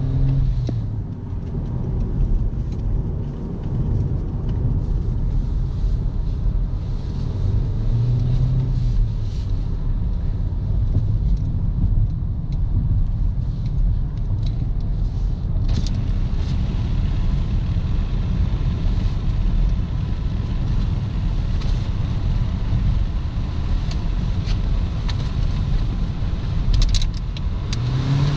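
2018 Toyota Corolla LE's four-cylinder engine running under way, with steady low engine and road rumble. The engine note rises and falls a couple of times as the car speeds up and eases off.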